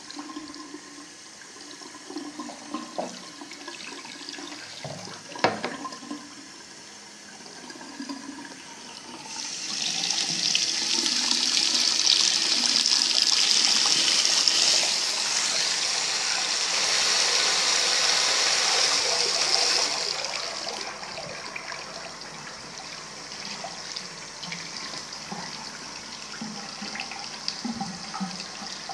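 Water running from a tap into a sink, with a sharp knock about five seconds in. About ten seconds in the flow turns into a loud hissing gush for some ten seconds, then drops back to a quieter run.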